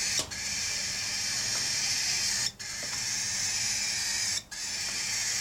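Aviary bird giving a continuous harsh, hissing racket, broken by short pauses about every two seconds: calling to be fed.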